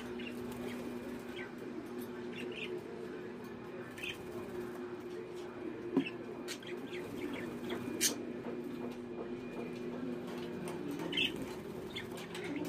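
A pair of courting budgerigars in a cage: short, scattered chirps and soft chatter, with a couple of sharp clicks about six and eight seconds in, over a steady low hum.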